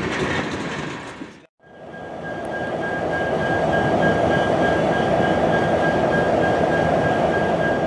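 Freight train tank cars rolling past, fading out at a short break. Then a steady diesel locomotive rumble with a thin, steady high whine.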